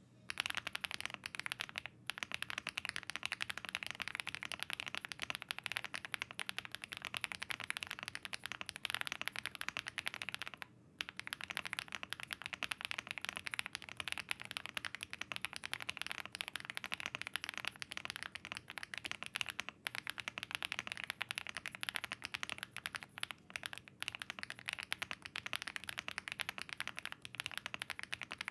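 Fast, continuous typing on a Furycube F75 aluminium mechanical keyboard with HMX Lemon Grape switches, a polycarbonate plate, PE foam and double-shot PBT keycaps: a dense stream of key clacks with a short pause about eleven seconds in. The sound is a foam-damped, 'thocky, marbly, creamy' one.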